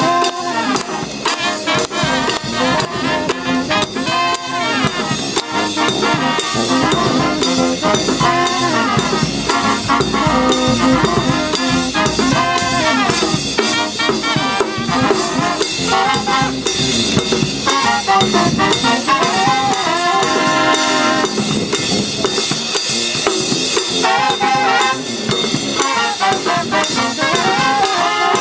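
Marine Corps brass band playing an up-tempo jazz tune, with trumpets, trombones, saxophone and sousaphone over bass drum and snare.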